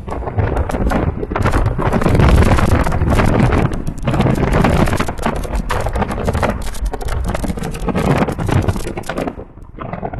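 Wind rushing and buffeting over the microphone, with road noise from a car driving along at speed; the rush eases about nine seconds in.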